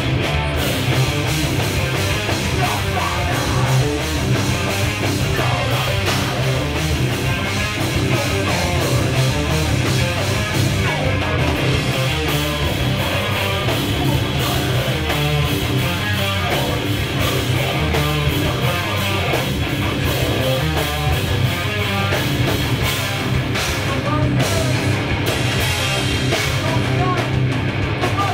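Live heavy rock band playing loud in a small club: electric guitars, bass and drum kit, with a vocalist on the microphone.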